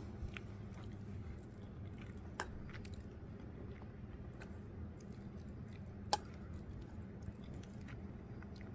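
Soft chewing with scattered small clicks and two sharper clicks a few seconds apart, over a steady low hum.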